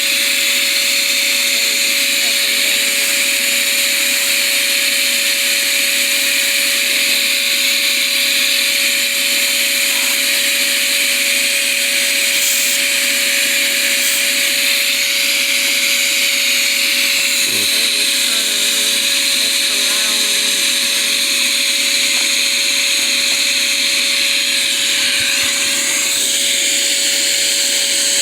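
Small beetle vacuum running steadily with an even whine, sucking up small hive beetles from a beehive's lid and frames.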